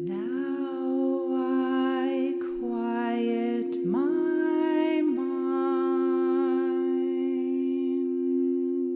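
A singing bowl rings with a steady, sustained tone while a voice hums long wordless notes over it. The voice sings in a few held phrases, each sliding up into its pitch.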